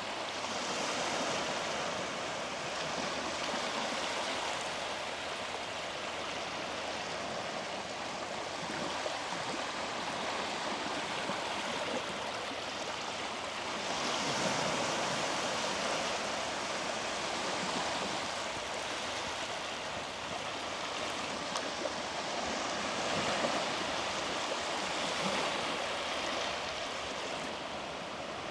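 Small sea waves breaking and washing up the beach: a steady hiss of surf that swells and eases every few seconds.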